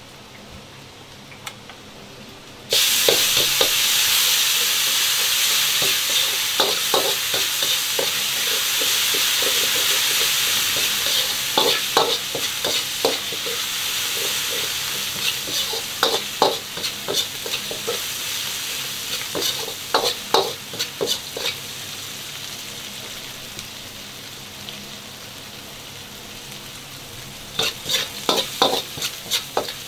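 Green Sichuan peppercorns, ginger, garlic and scallions hitting hot oil in a wok: a sudden loud sizzle starts about three seconds in and slowly dies down as they fry. A metal wok ladle stirs and scrapes them, clacking against the wok now and then, with a quick run of clacks near the end.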